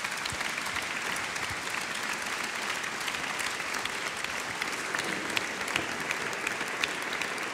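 Audience applauding: many hands clapping at a steady level, cutting off abruptly at the very end.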